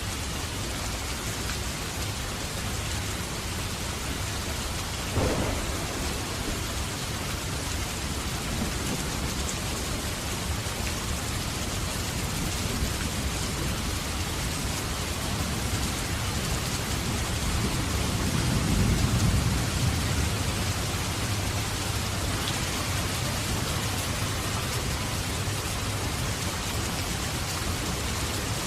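Heavy rain falling steadily, with a sharp crack of thunder about five seconds in and a low rumble of thunder that swells and fades about two-thirds of the way through.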